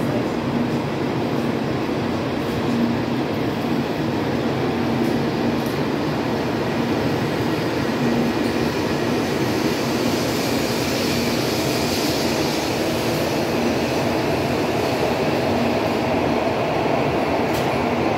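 N700A Shinkansen train departing from a station platform, its cars rolling past with a steady running noise and a low hum. A higher rushing sound builds about halfway through as it picks up speed.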